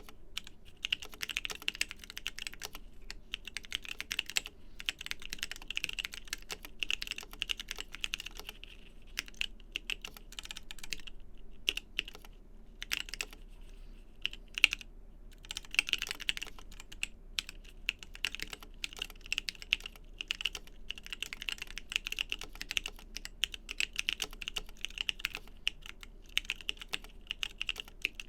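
Typing on a custom 60% mechanical keyboard with lubed TKC Kiwi 67g tactile switches and DSA-profile keycaps: fast, continuous keystrokes with a few short pauses.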